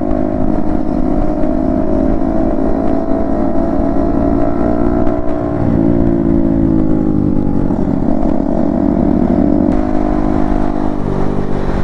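Single-cylinder motorcycle engine running under way at fairly steady revs, its pitch easing off briefly about halfway through and again a few seconds later.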